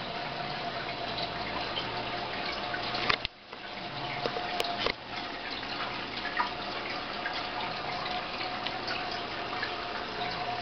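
Goldfish tank's water filter trickling and bubbling steadily, over a steady hum.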